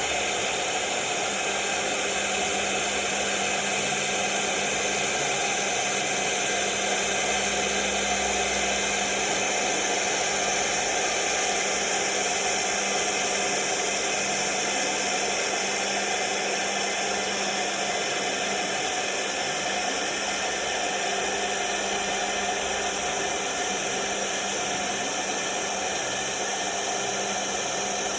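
MecanoCNC M2 CNC router's spindle running steadily, a whine over a hiss, as its solid carbide bit cuts 4 mm aluminium composite (ACM) panel.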